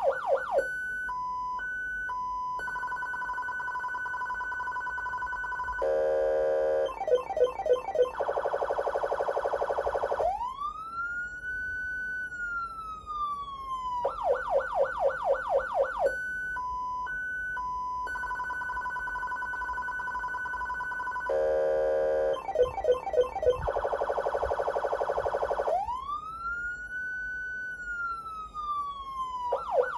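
Federal Signal Unitrol Omega 90 electronic siren amplifier cycling through its tones. In turn come fast pulsing, a short high-low alternation, a steady tone, a fast warble, and a wail that rises quickly and then falls slowly. The whole sequence repeats about every 16 seconds.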